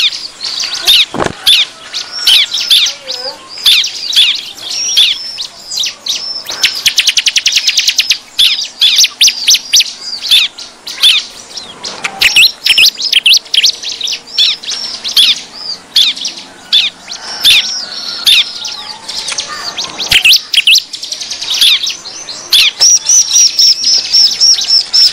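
Bar-winged prinias (ciblek) calling noisily: sharp repeated chirps broken by fast, rattling trills, several of them about 7 s in and again near the end. This is the agitated 'ribut' ciblek call used as a lure to draw wild ciblek in.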